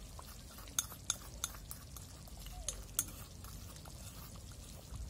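Thick grape pickle mixture boiling hard in a wide pot over a wood fire, bubbling with a string of irregular sharp pops.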